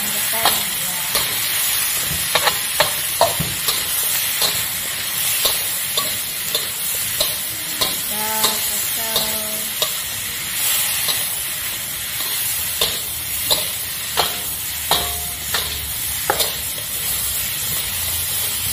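Metal spatula scraping and clacking against a wok, stirring sliced raw durian and anchovies, about once a second over the steady sizzle of the food frying in hot oil.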